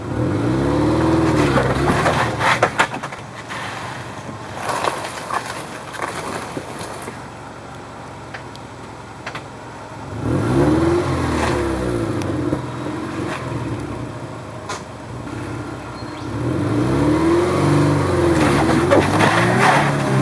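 First-generation Subaru Forester's flat-four engine revving up and down in three surges as it works the car up a rock climb, with a few sharp knocks in the first few seconds.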